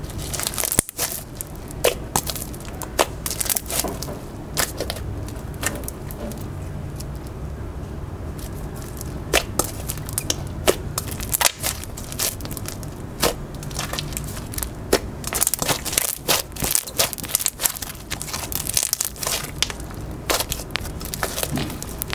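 Floam slime packed with styrofoam beads and pom poms being squeezed and kneaded by hand, the beads popping and crackling in irregular clicks that come thicker near the end.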